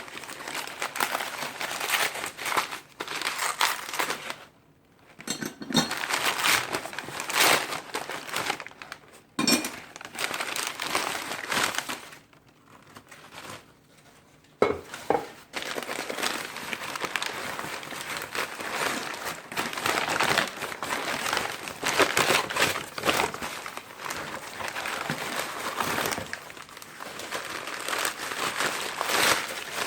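Packing wrap crinkling and crumpling as individually wrapped old metal wrenches are unwrapped by hand, in long spells with two short pauses, and one sharp knock about fifteen seconds in.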